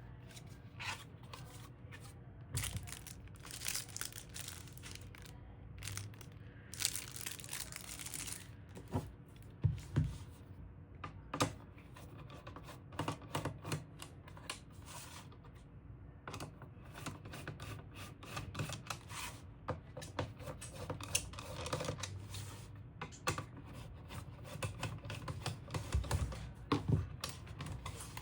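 Hands handling small parts and packaging: irregular clicks and light knocks, with a few bursts of rustling and crinkling and some soft thumps.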